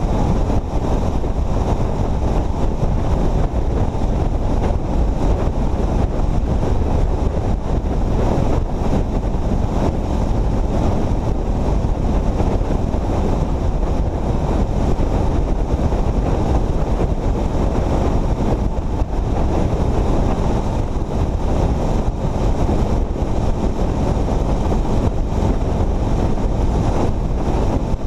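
Steady wind noise buffeting a camera microphone on a motorcycle at highway speed, with the machine's road and running noise underneath.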